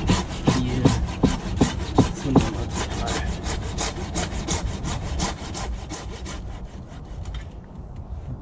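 Hand saw cutting through wood with quick, even back-and-forth strokes, about three a second. The strokes stop about six and a half seconds in.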